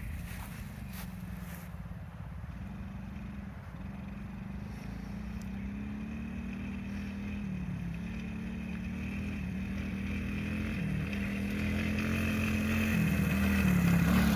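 Small 50cc children's ATV engine running, its pitch dipping and rising several times with the throttle, growing louder toward the end as it comes closer.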